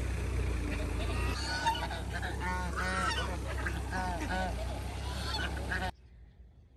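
Domestic geese honking, a run of repeated calls through the middle, over a steady low rumble; the sound cuts off abruptly near the end.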